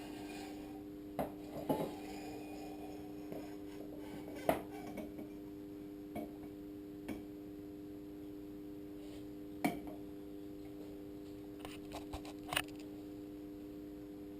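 Scattered metal clinks and knocks as the inner leg of a WP motorcycle fork is worked out of its outer tube, over a steady hum.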